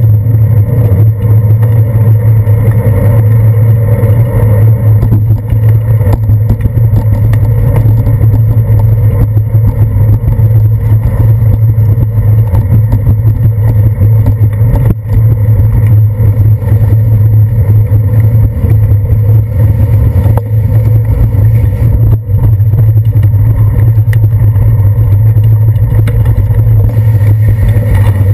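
Loud, steady rumble of a bicycle riding over wet pavement, heard through a camera mounted on the handlebars, which picks up road vibration and tyre noise.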